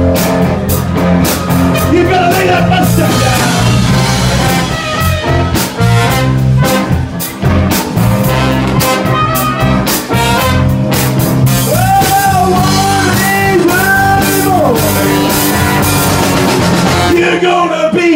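Live soul-funk band with a brass section of two trumpets and a trombone, playing over electric guitar, bass and drums. The brass holds long notes in the middle. Near the end the bass and drums drop out.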